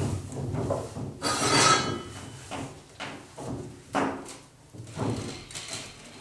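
Irregular wooden knocks and rubbing from hands working at a wooden bakery kneading trough, with a longer scraping sound about a second in.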